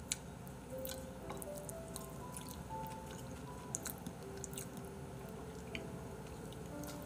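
Quiet background music, a slow melody of held single notes, over faint chewing and a few small clicks.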